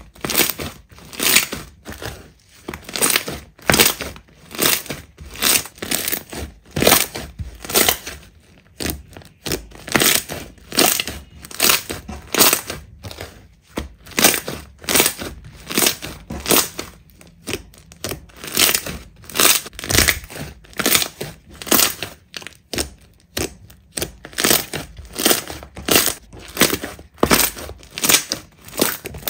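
Slime being pressed and squeezed by hand in a steady run of short, sharp presses, about two a second.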